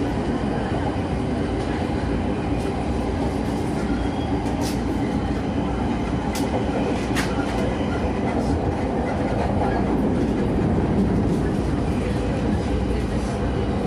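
Running sound inside a JR East E231 series electric train's motor car at speed: a steady rumble of wheels on rail with a low, even hum, and a few sharp clicks around the middle.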